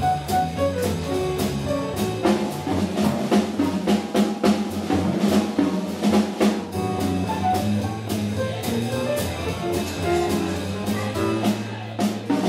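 Small jazz combo playing live: drum kit with frequent cymbal and drum hits, electric bass and horns, the bass holding one long low note in the last few seconds.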